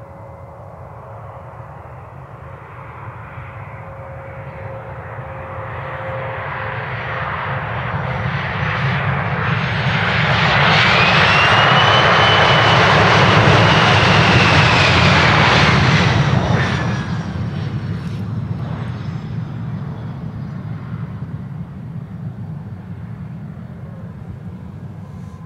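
A Bombardier Challenger 850 (CL600) business jet's two rear-mounted General Electric CF34 turbofans on the landing rollout, under reverse thrust. The engine noise builds to a loud peak with a high whine that rises and then falls in pitch as the jet passes, drops off sharply just past the middle, and then dies down as the jet slows.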